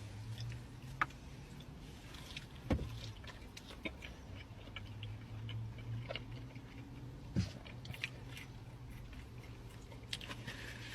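Close-miked eating sounds of french fries being chewed: scattered small crunches and sharp mouth clicks, a few of them louder, over a low steady hum.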